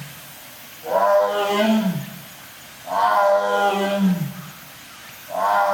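Lion calling in a repeated series, three 'waa-uu' calls about two seconds apart. Each call is held for about a second and drops in pitch at its end.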